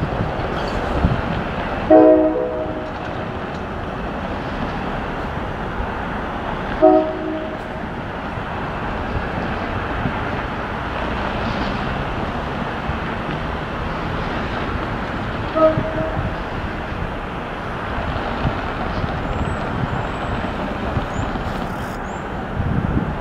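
LIRR EMD MP15 diesel switcher approaching slowly with a train of tie cars, its engine and rolling noise steady, while the locomotive horn sounds three short blasts, the first about two seconds in and the longest, then one around seven seconds and a last, shorter one past the middle.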